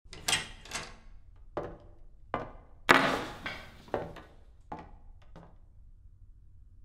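A run of short knocks and clicks, about eight in all, as car keys are handled and set down on a wooden tabletop. The loudest is a clatter with a brief metallic jangle about three seconds in.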